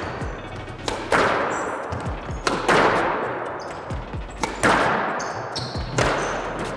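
Squash rally: the ball strikes racquets and walls with sharp hits about every second and a half, each echoing in the court, and shoes squeak briefly on the wooden floor between shots.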